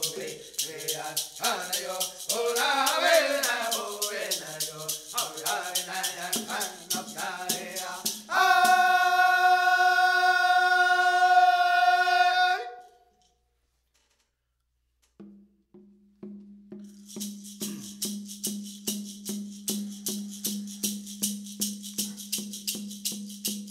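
A women's dance song: singing over a shaken rattle keeping an even beat, then one long held note. After a silence of about two seconds, the rattle beat comes back at about two to three shakes a second over a low steady tone.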